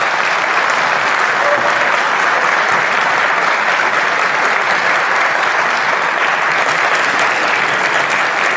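Steady applause from members of parliament in the assembly chamber, greeting a speaker walking to the rostrum.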